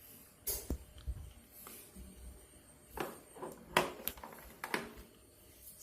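Scattered light clicks, taps and knocks of objects being handled, with a few sharper knocks about three and four seconds in.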